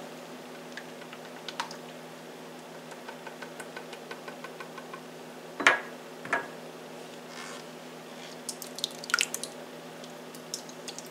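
Gravy mixture being poured into a crock pot, dripping and splatting, with two louder wet plops about six seconds in and a few light taps near the end.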